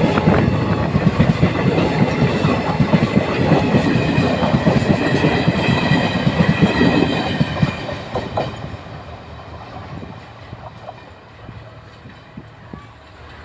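Passenger train of ICF coaches running by, its wheels clattering rapidly over the rail joints, clickety-clack. About eight seconds in the clatter fades away as the train draws off.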